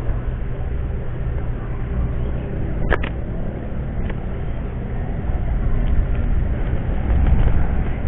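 A motor runs with a steady low hum, and one sharp click comes about three seconds in.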